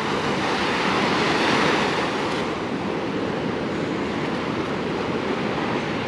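Pacific Ocean surf washing onto the beach. It swells over the first second or two, then holds as a steady wash.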